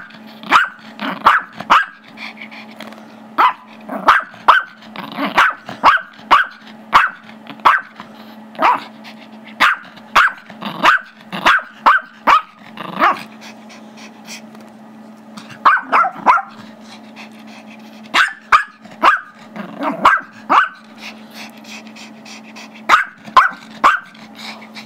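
Small Chihuahua–Yorkshire terrier mix barking sharply and repeatedly in quick runs of several barks with short pauses, play barking because he wants the squeaky toy the other dog is holding. A steady low hum runs underneath.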